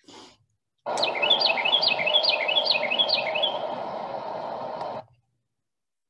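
Carolina wren singing a fast, rolling run of about seven repeated whistled phrases ("germany, germany, germany") over a steady rushing background noise. It starts about a second in and cuts off suddenly about four seconds later.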